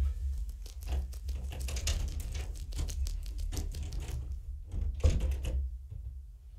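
Rapid scratchy rustling and clicking close to the microphone over a low rumble, with a louder burst about five seconds in.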